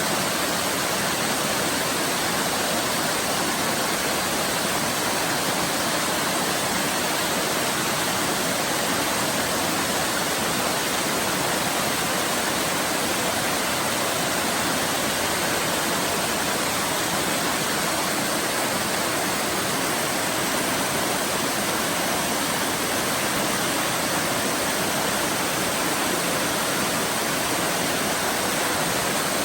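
Waterfall: water pouring and splashing in a steady, unbroken rush with no changes.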